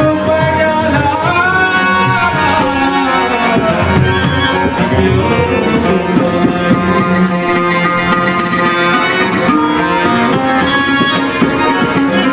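Johor Malay ghazal music: a melody line over a steady, fast percussion beat.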